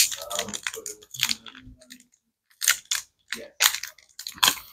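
Foil trading-card booster-pack wrapper crinkling and crackling in irregular bursts as fingers pick and tug at its torn corner, struggling to get it open, with a short pause about two seconds in.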